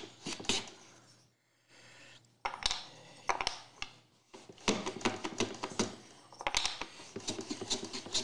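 Hand-tool work on small pieces of Pacific yew at the bench: a run of sharp wooden clicks, knocks and short scrapes, with a brief near-quiet pause about a second in.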